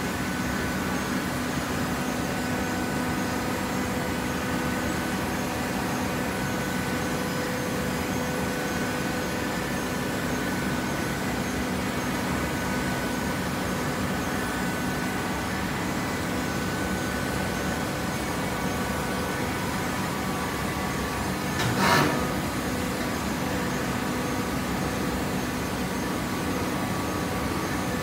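Vertical cardboard baler's hydraulic power unit running with a steady hum holding several even tones. One short sharp knock about three quarters of the way through.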